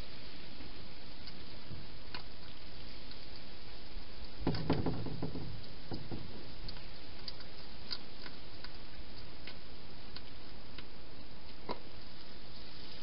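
Hedgehog feeding from a bowl inside a plastic feeding box: scattered small clicks over a steady hiss, with a short cluster of knocks and rustles about four and a half seconds in.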